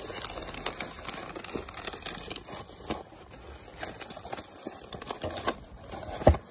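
Plastic treat packets and shredded paper filler crinkling and rustling as they are handled and nosed through in a gift box, a dense stream of small crackles and clicks. A single sharp thump sounds near the end.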